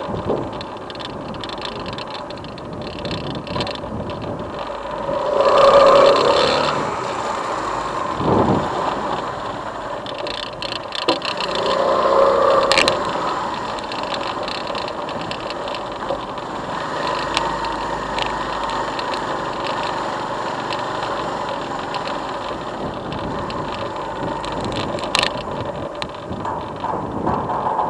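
Motorcycle engine running as the bike rides along, swelling louder twice, about six and twelve seconds in.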